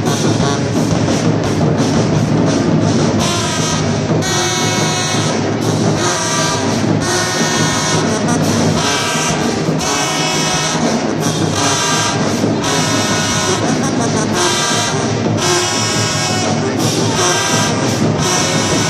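Marching band brass section with sousaphones and trombones playing loud, hitting repeated short chords.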